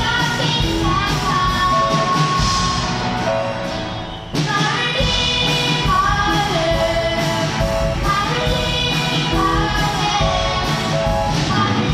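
Live amplified band playing a song with drums, guitars and keyboard, voices singing over a steady drum beat. The music sags and cuts out for a moment about four seconds in, then comes straight back.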